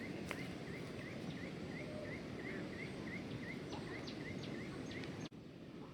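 An animal's short rising chirp, repeated about three times a second over a steady low background rumble, stopping a little over halfway through. A few faint sharp ticks follow, and the sound drops out briefly near the end.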